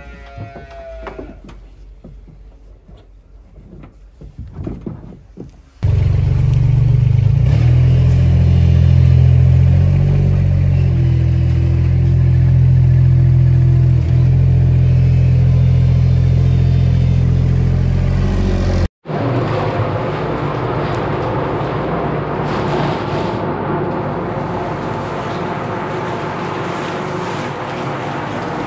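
A calf moos once at the start. From about six seconds in, a farm loader's diesel engine runs loudly and steadily. After a sudden cut, a calf-milk mixer runs with a steady whir as its stirrer turns the milk.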